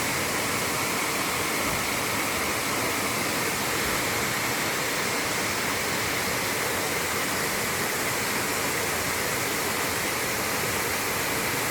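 Waterfall rushing and splashing in a steady, dense roar of falling water.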